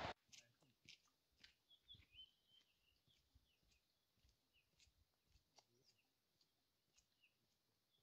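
Near silence outdoors, with faint short bird chirps scattered throughout and a few soft clicks and taps.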